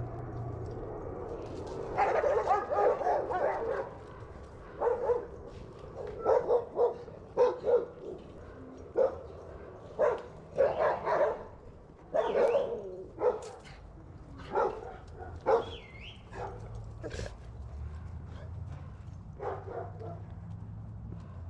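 A dog barking repeatedly in irregular bursts of one to several barks, with a low vehicle hum at the start and again near the end.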